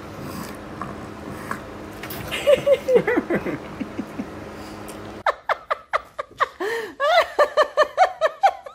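A woman laughing in quick repeated bursts, starting about halfway through after an abrupt change. Before that, a steady background hiss with a brief run of a person's short vocal sounds.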